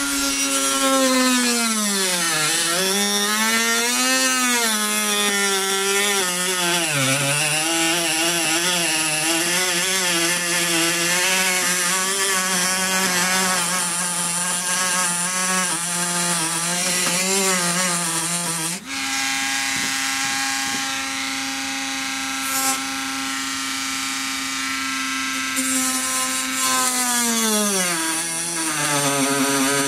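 Dremel rotary tool cutting through a plastic car bumper. Its motor whine sags in pitch as the bit loads up in the cut and climbs again as it frees. Past the middle it breaks off for an instant, then runs at a steadier pitch before sagging again near the end.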